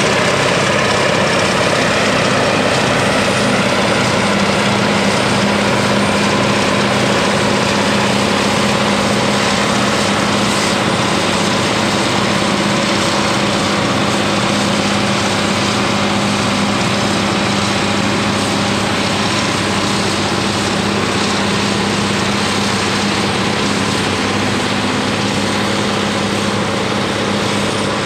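Caterpillar 637D twin-engine scraper's diesel engines working under load while the scraper loads dirt in the cut: a loud, steady drone with a strong low hum that eases slightly near the end.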